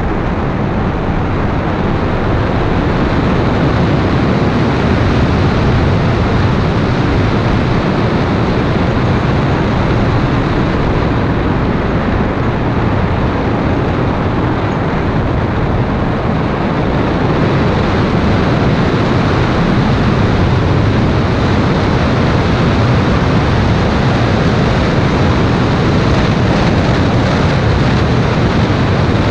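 Toyota MR2 mk2 driving at a steady pace, heard as an even, dense rush of wind and road noise with no marked rise or fall.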